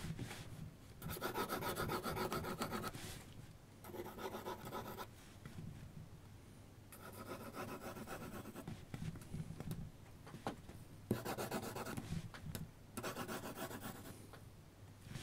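2B mechanical graphite pencil scratching across paper in rapid back-and-forth hatching strokes. It comes in several runs of a second or two, with short pauses between.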